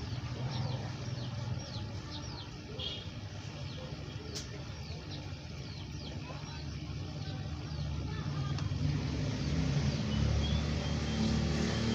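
A low engine rumble, as of a vehicle, growing louder after about eight seconds, with birds giving short falling chirps in the first few seconds.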